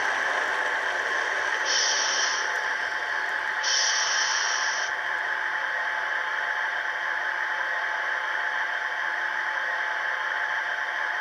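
Sound-decoder speaker in an HO-scale 113 series EMU model playing a steady blower-like hum, broken twice by short bursts of compressed-air hiss, about two seconds and four seconds in.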